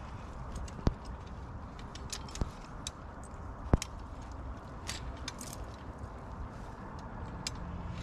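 Metal clicks and clinks of a body-grip beaver trap and its cable being handled while it is set on its stand, with a few sharp clicks, the sharpest about four seconds in.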